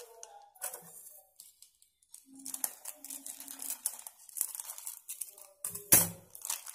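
Small plastic packets crinkling and rustling as they are handled, snipped open with scissors and emptied. Near the end there is one sharp knock.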